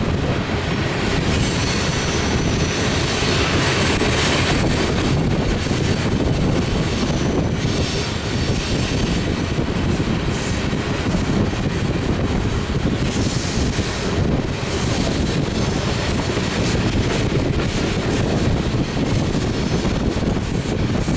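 Covered hopper cars of a BNSF grain train rolling past, their steel wheels on the rails making a steady, continuous noise.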